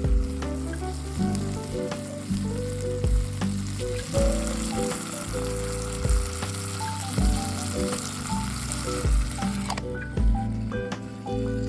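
Food sizzling as it fries in a hot pan, a steady hiss that cuts off suddenly near the end, with background music and a regular beat underneath.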